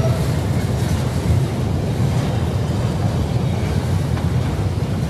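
Freight train of enclosed autorack cars rolling past, a steady low rumble of wheels on rail.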